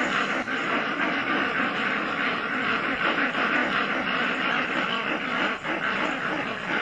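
Steady, even rainforest background noise with no distinct calls or strikes standing out.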